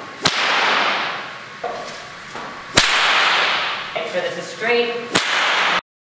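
Bullwhip cracked three times, about two and a half seconds apart. Each crack is the tip breaking the sound barrier, a sharp report followed by a rushing noise that fades. The sound cuts off suddenly near the end.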